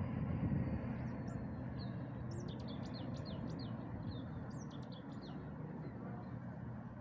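A small bird chirping: a quick series of short, high chirps over a steady low background rumble.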